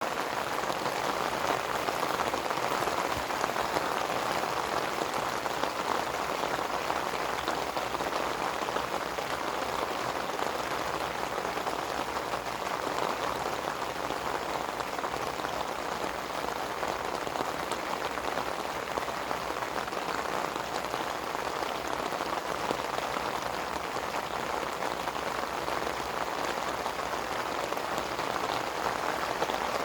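Steady rain falling, a dense, even mass of drops hitting a surface without letup.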